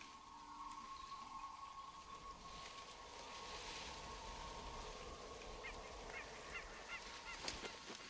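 Quiet outdoor ambience with a faint steady tone, and a bird giving a quick run of short chirps about two-thirds of the way in, followed by a few light clicks near the end.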